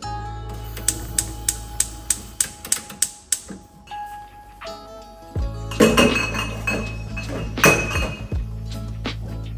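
Soft background music over kitchen handling sounds: a quick run of light clicks and clinks, then two louder clatters of dishes or glassware.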